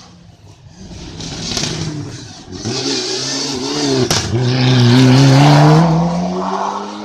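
Hillclimb race car approaching under hard acceleration, its engine revving up through the gears. The pitch climbs, drops at a gearshift about four seconds in with a sharp crack, then climbs again and is loudest about five to six seconds in, before falling away near the end.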